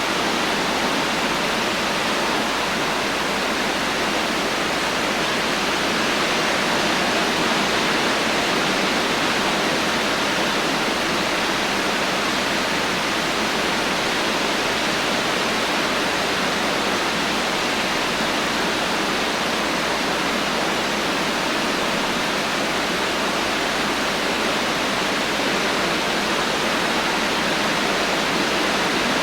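Heavy rain falling steadily, a dense even hiss with no thunder and no single drops standing out.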